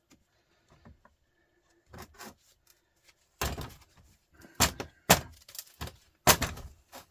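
Irregular sharp metal knocks and clanks from tools and heavy starter parts being handled and struck while taking apart a truck starter motor. The loudest come in the second half, several close together.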